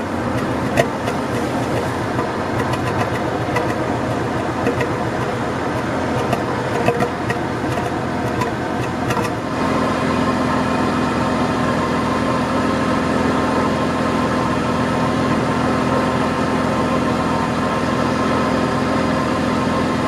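Exhaust of a 1992 Acura Legend's 3.2-litre V6 idling at the dual tailpipes. At first the original, misfire-damaged catalytic converter is still fitted and the idle is less even. After a cut about nine and a half seconds in, the replacement converter is fitted and it idles more steadily.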